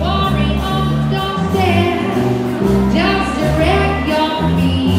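Background pop music with singing, a steady bass line under held melody notes.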